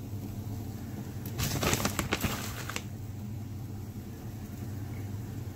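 A steady low hum, with a brief burst of rustling from about a second and a half in, lasting about a second and a half.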